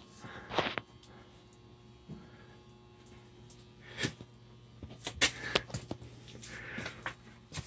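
A low steady hum with a few scattered light clicks and knocks, the clearest about half a second in, at about four seconds and a cluster around five seconds.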